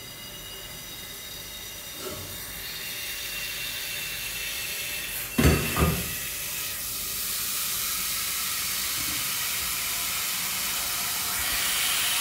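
Kitchen tap running into a stainless steel sink, water splashing onto a bowl of red grapes as they are rinsed by hand. A brief knock sounds about five and a half seconds in.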